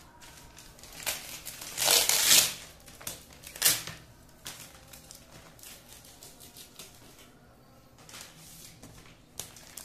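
Brown packing tape ripped off plastic wrap, a loud tearing rip about two seconds in and a sharp crack near four seconds, then the plastic wrap crinkling and rustling as it is handled.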